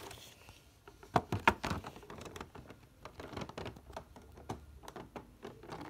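Hands handling an action figure box's clear plastic window: a run of crinkles, taps and clicks, loudest about a second and a half in.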